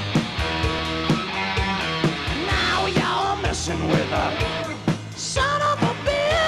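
Live rock band playing, with a steady drum beat under sustained bass and guitar; a lead line bending in pitch comes in about halfway.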